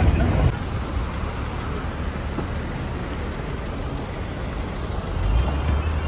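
Steady low rumble of a car driving on a road, engine and tyre noise heard from inside the cabin.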